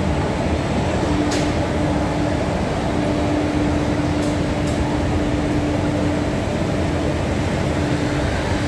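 Electric-hauled passenger train rolling slowly past: a steady rumble with a steady hum, and a few faint clicks about a second in and again near the middle.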